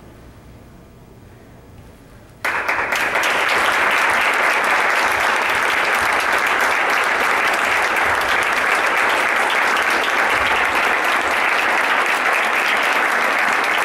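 Audience applauding, breaking out suddenly about two seconds in after a moment of quiet and then going on steadily.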